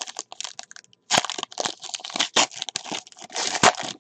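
Foil wrapper of a Panini football trading card pack crinkling and crackling as it is torn open by hand, in a dense run of crackles that gets louder about a second in.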